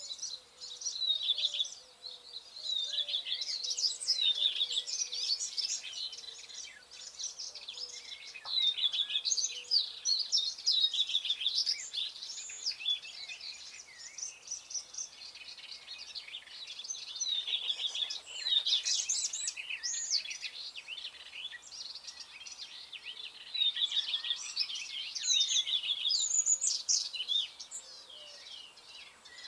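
Songbirds singing: bursts of quick, varied high whistles and trills a few seconds long, separated by short pauses.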